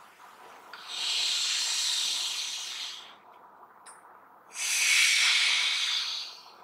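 A person breathing out hard through the mouth twice in a qigong breathing exercise, each breath a long hiss of about two seconds.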